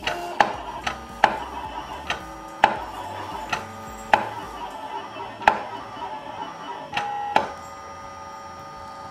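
BST-PL386 cutting plotter cutting a sheet of protector film: a steady motor whine as the cutting head travels, broken by about eight sharp clicks at uneven intervals as the blade drops and lifts. The clicks stop a little past seven seconds in, leaving the steady whine.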